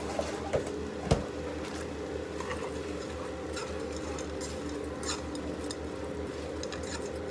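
A utensil stirring shredded cabbage and carrots in a small pot on an electric stove, with light scrapes and clicks against the pot. There is a sharp knock about a second in, over a steady low hum.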